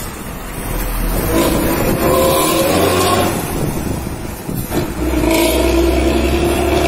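Bus engine pulling hard through a loud modified exhaust. It builds about a second in, drops off briefly just past halfway, then pulls again.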